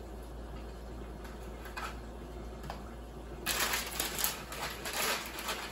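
A few light clicks, then a crinkling rustle beginning about three and a half seconds in, as tutti-frutti pieces are handled and sprinkled over cake batter.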